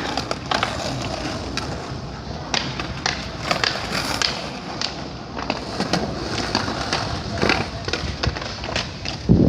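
Skateboard wheels rolling, with repeated sharp clacks of boards popping and landing during ollie attempts.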